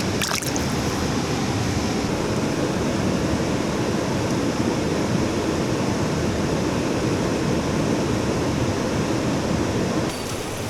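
Steady rush of a mountain stream running over rocks, with a brief click just after the start.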